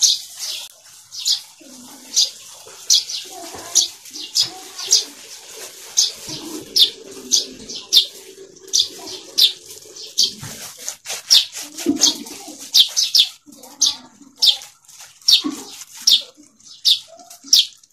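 A small bird chirping over and over, short high chirps coming one to three a second. Under it, softer rubbing and smearing of wet clay slurry being wiped by hand onto an earthen stove.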